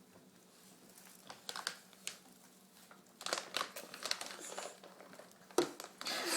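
Light crinkling rustle and scattered clicks, a few faint ones at first, then a denser patch about halfway through and a sharp one near the end.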